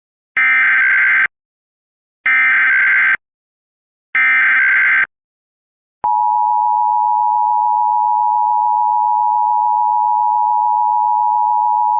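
Emergency Alert System SAME header: three harsh, buzzing digital data bursts, each about a second long and about two seconds apart. About six seconds in, the steady single-pitched EAS attention tone starts and holds, heralding a new alert.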